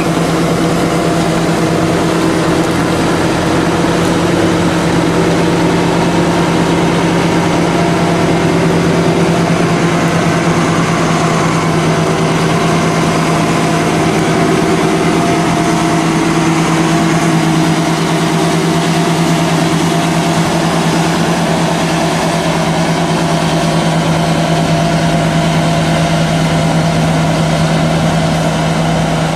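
Tractor engine running at a steady speed with a constant hum, as it works a peanut planting machine.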